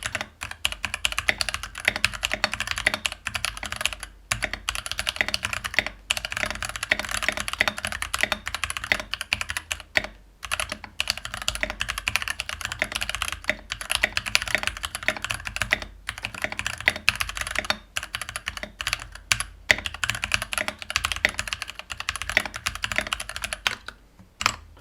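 Fast typing on a Keychron V4 60% mechanical keyboard with stock, unlubed Keychron K Pro switches and factory-lubed stabilizers in a plastic ABS case: a steady stream of clacky keystrokes with short pauses every few seconds.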